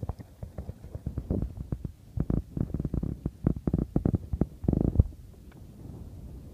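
Irregular low thumps and rumbling on the microphone, several a second, with a longer, louder rumble about five seconds in, then settling to a quieter low rumble.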